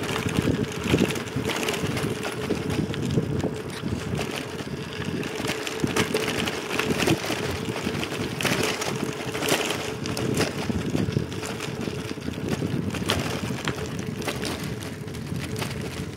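A bicycle being ridden, its tyres rolling with frequent crackles and knocks over a rough surface, with wind buffeting the microphone.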